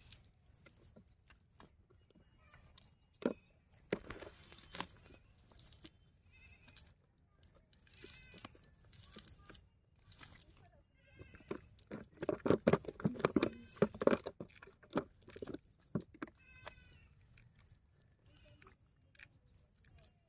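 Crackling and rustling of a cast net and dry grass as fish are picked out of the mesh by hand. About halfway through, a louder pulsing call lasts around two seconds.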